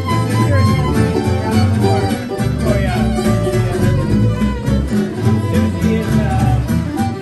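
Live acoustic string trio playing a swing tune: a violin carries the melody with sliding notes over two acoustic guitars strumming chords on a steady beat.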